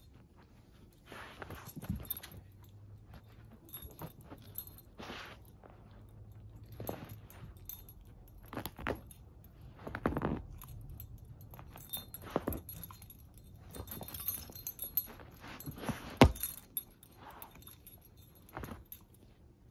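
Shepherd-mix dog chewing and gnawing at a plush fabric toy: irregular crunches and clicks, with her metal collar tags jingling. A single sharp click about three-quarters of the way through is the loudest sound.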